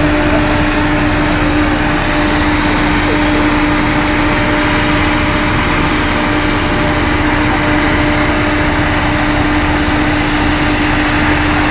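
Drilling rig machinery running steadily, a loud continuous engine drone with a strong low hum and a fainter tone above it.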